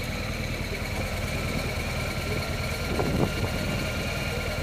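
Motorcycle engine idling steadily, with a brief louder moment about three seconds in.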